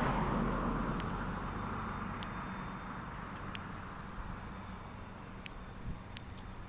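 A passing vehicle fading into the distance over steady outdoor background noise, with a few faint, sharp ticks scattered through it.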